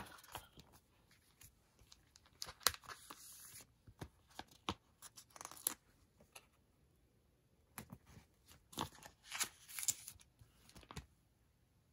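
Close-up paper handling: planner pages turning and stickers being peeled off and pressed down, heard as short crisp rustles, taps and peeling sounds in irregular bursts with quiet stretches between.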